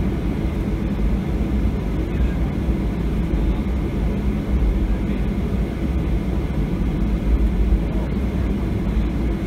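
Steady low rumble in the cabin of a Boeing 737-700 taxiing after landing, its CFM56-7B engines at idle.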